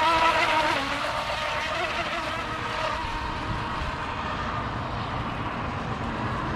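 Electric RC tunnel-hull boat's motor whining as the boat runs fast across the water, with a wavering pitch and loudest about the first second. As the boat pulls away the whine thins to a faint steady tone over a low rumble.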